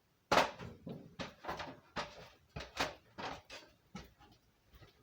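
A run of irregular scuffs and knocks, about ten in four seconds, the first the loudest: handling and movement under a vehicle.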